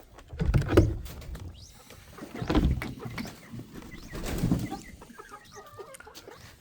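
Three heavy footsteps about two seconds apart, with chickens calling faintly in the background and a few soft chirps near the end.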